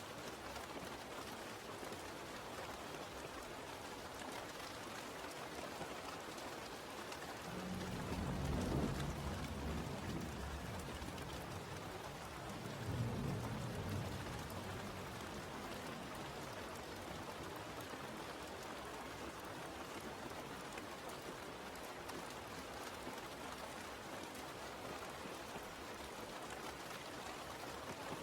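Steady rain falling, with two low rumbles of thunder, one about eight seconds in and a shorter one about thirteen seconds in.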